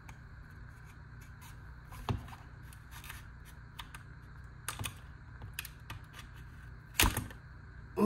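Plastic blister packaging being worked open by hand: scattered crinkles and clicks, with sharper snaps about two seconds in, near five seconds, and at seven seconds.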